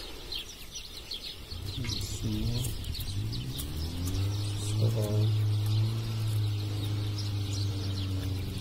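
Small birds chirping in quick, high, falling calls. About two seconds in, a low pitched drone comes up, rises briefly in pitch, then holds steady and becomes the loudest sound.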